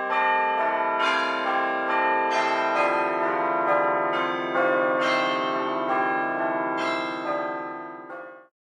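Church bells ringing, several bells of different pitch struck one after another with their rings overlapping, then cutting off suddenly near the end.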